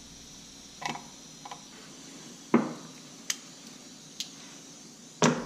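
Scattered light clicks and knocks of a hard plastic strobe-light housing and hand tools being handled on a workbench, about six in all, the loudest about halfway through and at the very end.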